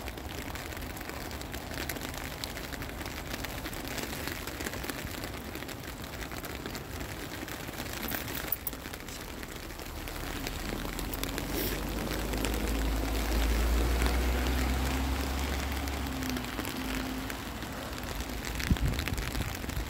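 Steady rain pattering, a fine hiss of many small drop ticks. Partway through, a low rumble swells and fades over several seconds, and a few low knocks come near the end.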